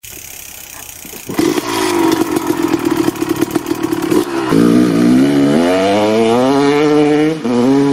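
Motocross dirt bike engine revving: a steady lower note with a rapid crackle, then accelerating with the pitch climbing, dipping briefly at a gear change near the end and climbing again.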